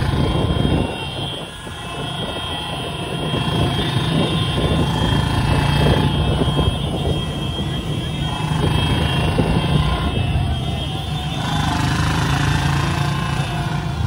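Many motorcycle engines running together at riding speed, a loud, steady, droning hum.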